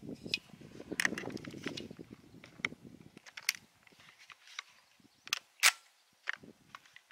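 A CZ 75 pistol magazine being loaded by hand: rustling handling with a few small clicks as a cartridge is pressed in. Then a string of separate sharp metallic clicks and clacks, the loudest a little past the middle, as the magazine is fitted into a Ruger PC Carbine's CZ magwell adapter.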